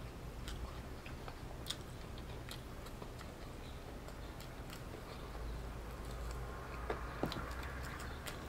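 A person chewing fried chicken with the mouth close to the microphone: soft irregular clicks and smacks a few times a second, over a low steady hum.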